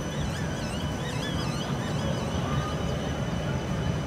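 Bern tram rolling past at close range: a steady low rumble from its wheels and running gear with a thin high whine over it. Wavering high-pitched tones sound during the first second and a half.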